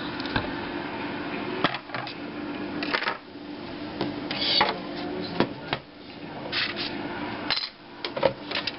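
Plastic front-panel parts of a desktop computer case being handled and fitted: irregular clicks, knocks, scrapes and rattles, with a faint steady hum underneath.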